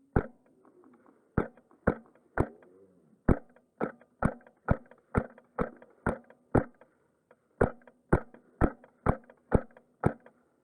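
Wolverine MTW HPA airsoft rifle firing in semi-auto, about eighteen sharp shots at roughly two a second with a couple of brief pauses.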